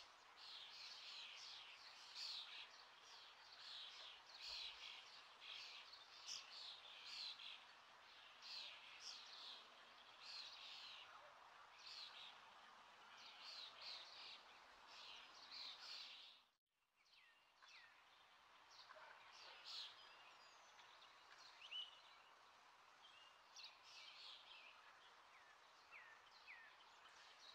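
Faint, rapid high-pitched bird chirping over a low hiss, thinning out after a brief break about sixteen seconds in.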